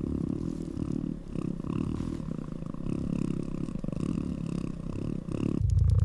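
Cat purring, a continuous rapid rumble that cuts off abruptly near the end, where a lower, louder steady hum takes over.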